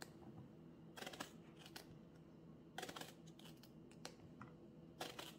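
Kitchen knife slicing a whole eggplant into thick rounds: three faint cuts about two seconds apart.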